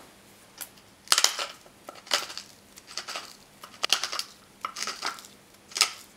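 Pepper mill with a ceramic CrushGrind grinding mechanism crushing peppercorns as it is twisted by hand, six short crunches about a second apart.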